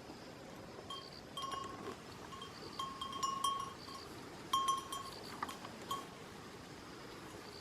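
Bells hung on the necks of grazing goats clinking irregularly, several small metal bells ringing at uneven intervals, with the busiest clanks about halfway through.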